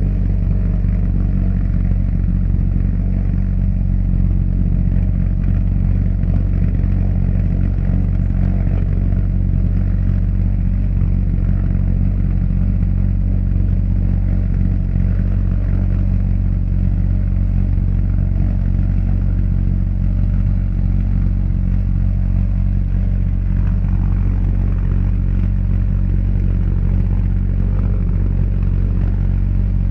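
Argus As 014 pulse jet engine from a V1 flying bomb running steadily on a test stand, a continuous pulsing drone with no let-up, recorded through an overloaded microphone.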